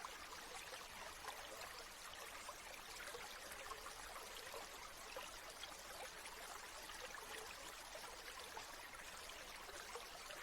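Gentle stream water trickling and babbling at a low, steady level, with many small splashes.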